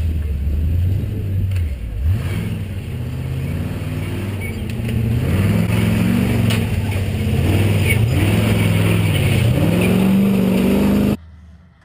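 Off-road truck's engine revving again and again as it climbs a trail, its pitch rising and falling with the throttle. It grows louder about halfway through as the truck comes close, then cuts off suddenly near the end.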